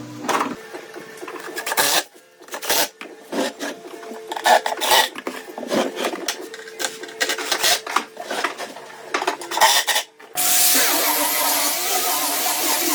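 Uneven scraping strokes of a hand tool worked over wood, a few strokes a second. About ten seconds in they stop abruptly and a steady hissing noise takes over.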